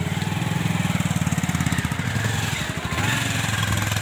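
Motorcycle engine running at low speed close by, with a rapid pulsing exhaust note; it eases off about two and a half seconds in and picks up again near the end.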